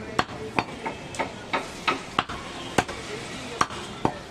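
Butcher's knife chopping goat meat on a wooden tree-stump block: about ten sharp knocks at an uneven pace, two or three a second.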